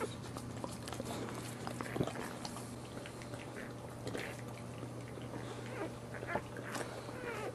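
Newborn Boxer puppies giving short, high squeaks and mewling whimpers, scattered through, over a steady low hum.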